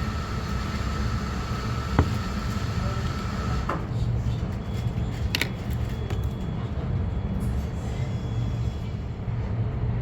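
Steady low rumble of a passenger train running, heard from inside the carriage, with a sharp knock about two seconds in.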